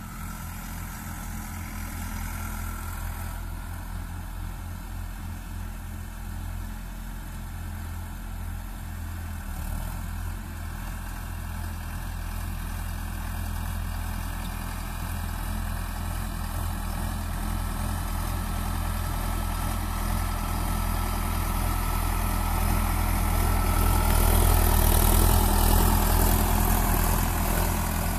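Sonalika Tiger tractor's diesel engine running steadily as it drags a rear leveling blade through loose soil. It grows louder as the tractor comes closer and is loudest near the end.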